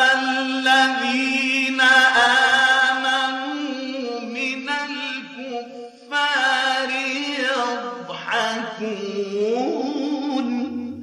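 A man reciting the Quran in melodic tajweed style, holding long drawn-out notes with ornamented turns. The recitation comes in two phrases with a short breath about six seconds in.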